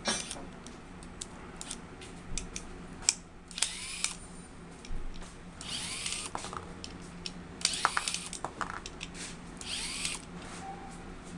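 Four short bursts of a small handheld power tool whirring, each about half a second long and starting with a brief rising whine, among scattered clicks and taps.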